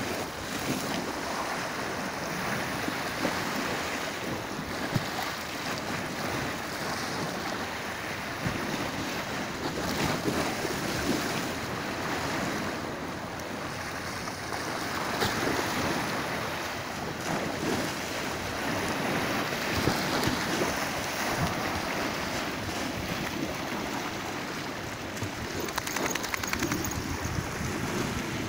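Small sea waves washing and breaking over a concrete slipway, a steady rushing surf, with wind noise on the microphone.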